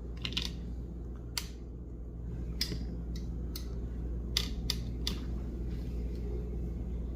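A scattering of short, sharp clicks and light taps, about eight over several seconds, over a steady low hum.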